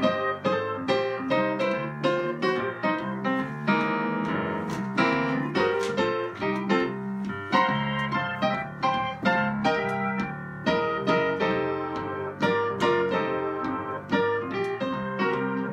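Digital piano playing chords and melody on its own, notes struck in a steady rhythm.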